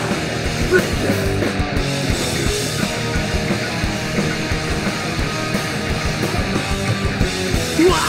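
Punk rock band playing loud and live, an instrumental stretch with no singing.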